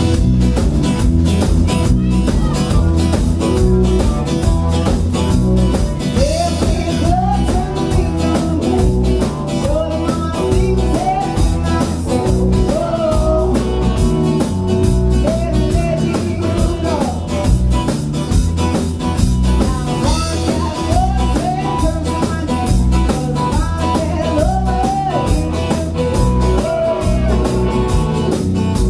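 Live rock band playing at a steady loud level: electric guitars, electric bass and drum kit.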